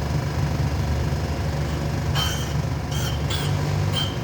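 Rod and cap grinder running with a steady motor hum, with about four short grinding rasps in the second half as a connecting rod face is passed across the wheel for a final cleanup cut.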